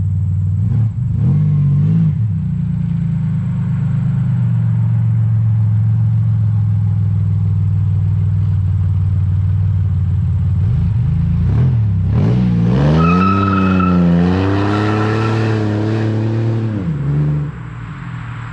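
Supercharged Buick GS engine idling on a quick warm-up, blipped briefly about a second in and revved up and held for a few seconds about twelve seconds in, with a high supercharger whine over the revs. The engine sound cuts off near the end.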